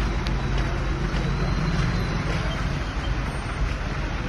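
Steady low rumble of a vehicle engine running, with road noise.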